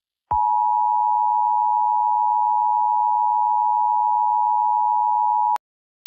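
Emergency Alert System two-tone attention signal: two close-pitched tones sounded together as one steady electronic beep, held for about five seconds and cut off abruptly.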